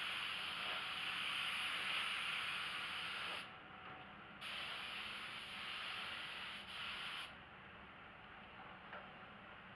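DeVilbiss GTI Pro spray gun hissing as it atomises paint, in three pulls of the trigger: it stops for about a second three and a half seconds in, dips briefly near seven seconds, and is released for good at about seven seconds, leaving a quieter steady hiss of moving air.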